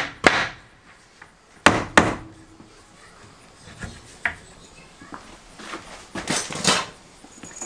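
A hammer striking the new wooden window framing: a loud blow just after the start, two more in quick succession about two seconds in, then lighter knocks and a pair of duller knocks near the end.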